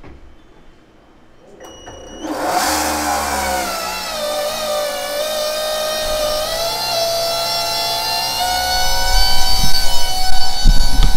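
Aeromotive 5.0 brushless fuel pump starting up about two seconds in, its whine climbing briefly as it spins up and then holding steady as it pumps mineral spirits through the lines: the formerly locked-up pump now turns and works. Low thumps come in near the end.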